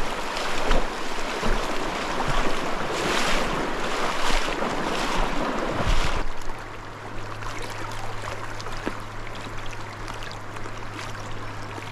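Shallow stream rushing over rocks in a riffle, with scattered splashes. The rushing is louder for about the first six seconds, then softer, and a steady low hum sets in underneath.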